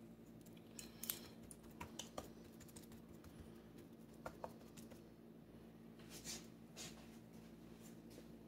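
Near silence: a faint steady hum with a few scattered light clicks and taps from hands handling raw chicken breasts on a paper plate.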